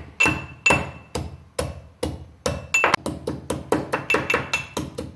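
Fresh ginger being pounded to crush it: a steady run of sharp knocks, about four a second, getting quicker after the middle, some with a brief ringing tone.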